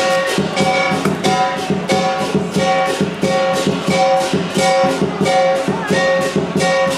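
Lion dance percussion: drum, cymbals and gong playing a steady, loud beat, with crashing cymbal clashes about twice a second.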